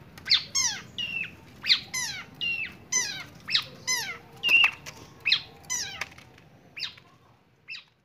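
Long-tailed shrike (cendet) calling: a quick series of short calls that slide sharply downward, about two a second, loudest midway and fading out near the end.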